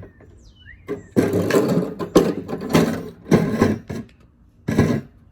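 A run of loud rattling, scraping bursts, each about half a second long and coming roughly every half second, from hard objects being scraped and banged on the ground as deliberate noise. After a pause there is one more burst near the end.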